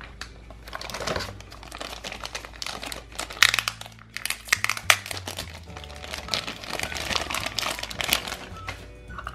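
Thin plastic packaging bag crinkling and rustling as hands handle a bagged Play-Doh candy mold, with a couple of sharper crackles midway.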